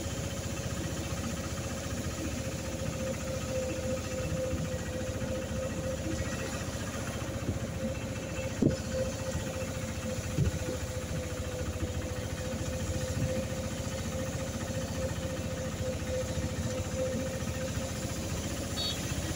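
Auto-rickshaw engine running steadily as it drives along, heard from inside the cab, with a constant faint whine over the engine's rapid beat. A couple of short knocks from bumps come about halfway through.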